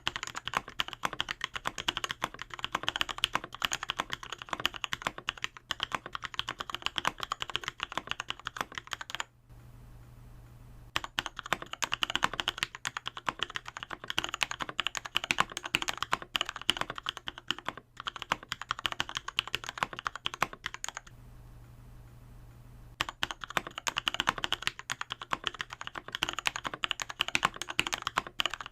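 Fast typing on a Novelkeys NK65 Entry Edition mechanical keyboard with lubed and filmed Alpaca v2 linear switches: a dense, continuous clatter of keystrokes. It stops twice for about two seconds, near nine seconds and near twenty-one seconds in.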